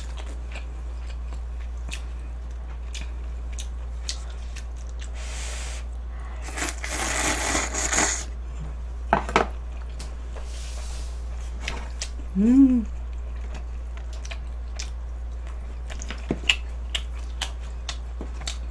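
Close-up eating sounds: scattered small clicks and mouth noises, a louder noisy stretch of about a second and a half around seven seconds in, and a short hummed 'mm' a little after twelve seconds, over a steady low hum.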